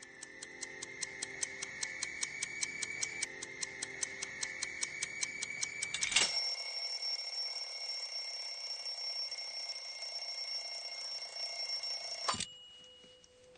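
Mechanical wind-up alarm clock ticking fast, about five ticks a second. About six seconds in it starts ringing, a steady high bell ring that cuts off suddenly with a knock about twelve seconds in.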